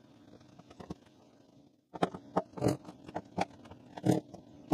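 Short plastic clicks and scrapes as poultry nipple waterers are twisted by hand into holes drilled in a plastic water barrel. The sounds come in a loose, irregular string, mostly in the second half.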